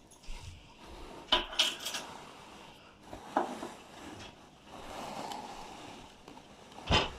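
Small hard miniature toy pieces being handled and set down: a few sharp clicks and clatters. There is a cluster about a second and a half in, and the loudest knock comes near the end.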